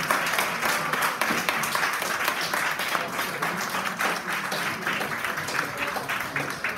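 A roomful of people applauding: steady, dense clapping that eases off a little toward the end.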